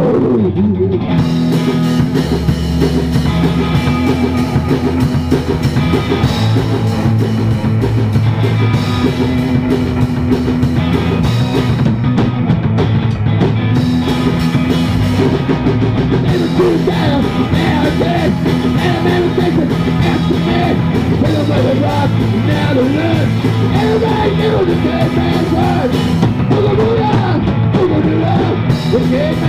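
Rock song: a band with electric guitar, bass and drum kit playing steadily, with a voice singing over it from about halfway through.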